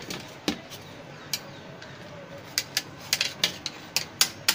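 Sharp plastic clicks and taps from the opened plastic body of a P60 BB air pistol as it is handled and pried at to free jammed 6 mm BBs. There are a few scattered clicks, then a quicker run of about four a second in the second half.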